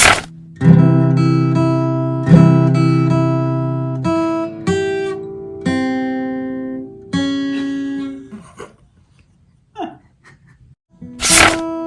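Acoustic guitar playing slow chords, each struck and left to ring and fade. The playing pauses briefly near the end, then a short harsh noise burst comes in just before it resumes.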